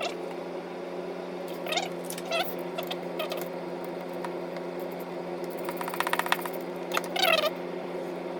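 Small metal steering-column parts being handled and fitted, with scattered clicks and a quick run of ratchet-like clicking about six seconds in, over a steady hum. Two short squeaky sounds that bend in pitch come near two and seven seconds.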